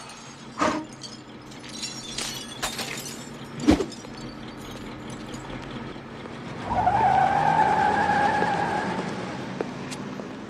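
Film sound effects: a couple of sharp hits with scattered clicks in the first few seconds, then a car's tyres squeal for about two seconds, fading away.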